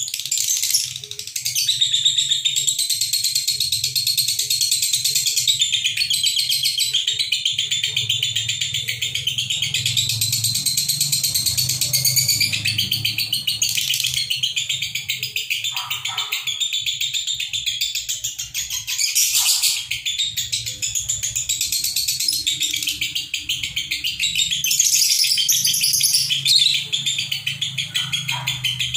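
Two pairs of caged lovebirds, Fischer's and masked, chattering loudly in a high-pitched, rapid trilling stream with no pauses: the nonstop 'konslet' singing that keepers record to tutor young lovebirds. A faint low hum sits underneath.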